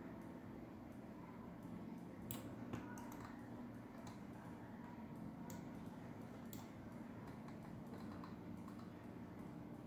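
About half a dozen sharp clicks at uneven intervals, mostly between two and seven seconds in, from working a computer's keyboard and mouse, over a steady low hum.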